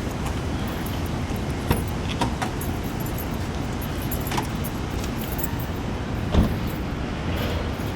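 Car running on the road, heard as a steady low rumble, with a few sharp clicks and rattles, the loudest about six seconds in.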